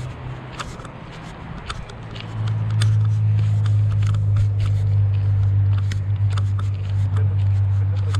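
Footsteps crunching on a dirt-and-gravel forest trail, with scattered small clicks and scrapes. About two seconds in, a steady low rumble starts and stays on under the steps.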